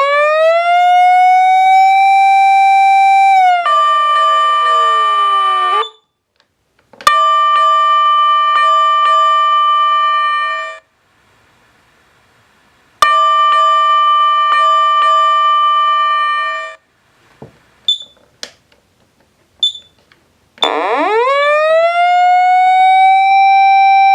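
Patlite SAP-500FBZ fire-engine siren amplifier cycling through its tones. First an electronic siren winds up and holds a steady wail. Then comes a steady two-note tone with a faint regular tick, which starts and stops twice with a click. After a few short high beeps, the siren winds up again near the end.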